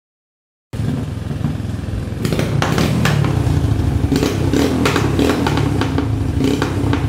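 Silent for a moment, then the engine of a modified TVS Apache 150 motocross conversion, a single-cylinder four-stroke, runs loud and uneven through its modified silencer, with sharp cracks scattered through it.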